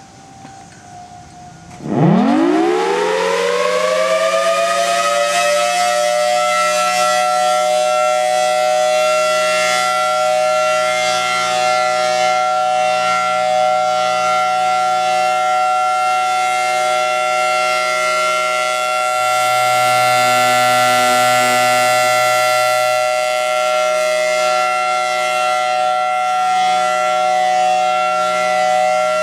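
Federal Signal Thunderbolt 1000T dual-tone tornado siren winding up about two seconds in, its pitch climbing fast and then levelling off into a steady two-tone wail: the alert (steady) signal of a monthly test. Before it starts, a Whelen and a Federal Signal Model 5 siren are faintly heard in the distance.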